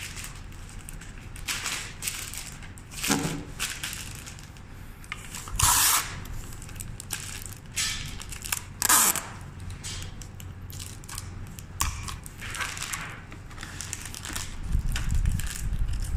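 Sheets of white wrapping paper being handled and gathered around flower stems, crinkling and rustling in irregular swishes. The two loudest rustles come about six and nine seconds in, and a low rumbling handling noise follows near the end.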